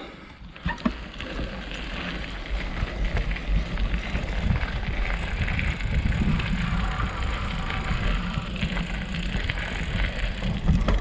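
Mountain bike rolling along a dirt forest trail, heard from a handlebar-mounted camera: tyre noise and frame rattle over a steady low rumble, with many small knocks from bumps in the trail.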